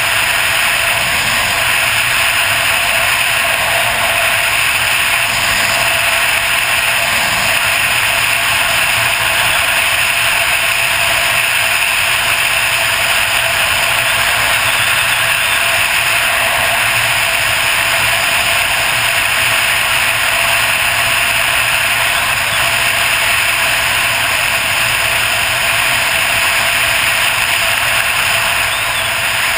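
Onboard sound of a Suzuki DR800 motorcycle on the move: steady wind rush over the camera microphone with the big single-cylinder engine running underneath at an even pace.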